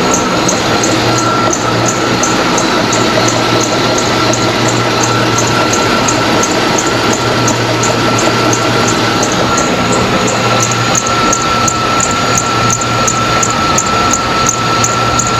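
GMC truck engine running with its accessory belt drive giving a steady high whine and a regular chirping squeak about three times a second. This is the belt squeak the owner is tracing to one spot in the belt drive.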